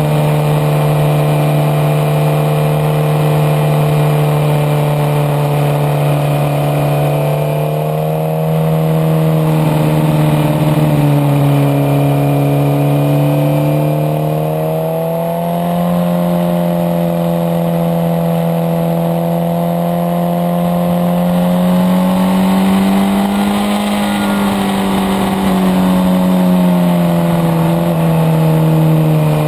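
Suzuki GSX-R sport bike's inline-four engine pulling in third gear at mid revs, with wind noise. The pitch dips about a third of the way in, climbs again soon after, and is highest a little past two-thirds through before easing near the end, as the throttle is eased and opened through the bends.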